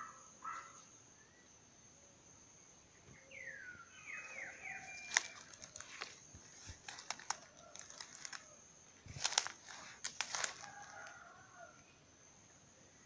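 Footsteps and snapping twigs in forest undergrowth, with the sharpest cracks about five seconds in and again around nine to ten seconds. A steady high insect drone runs underneath, and a brief bird call of a few falling, repeated notes comes about three seconds in.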